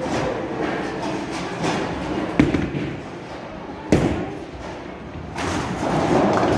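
Bowling balls landing on wooden lanes: two sharp thuds about a second and a half apart over the rolling rumble, then a louder clatter near the end as pins are struck.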